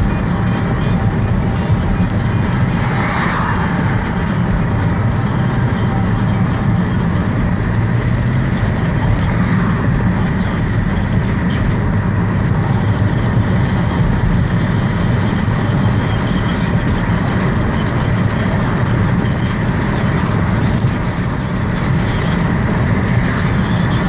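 Steady engine and road noise heard inside a car's cabin while it is driven at moderate speed.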